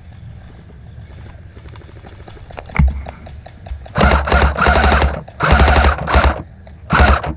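ICS L85A2 electric airsoft rifle firing: a single shot about three seconds in, then three bursts of full-auto fire, the last one short.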